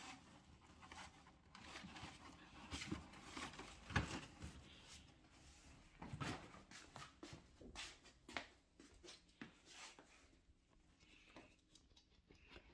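Faint, scattered taps, clicks and rustles from a dachshund puppy climbing out of a cardboard box and walking on a hard wooden-look floor.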